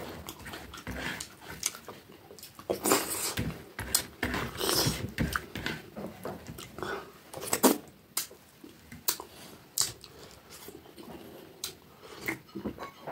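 Close-up mouth sounds of a person eating with his fingers: wet chewing and lip smacks in irregular bursts, with a few sharp louder smacks.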